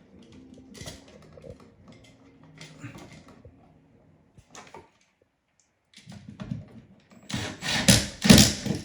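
Handling noise while working on outlet wiring: faint scattered clicks, a near-silent gap of about two seconds in the middle, then loud clattering and rustling in the last second and a half.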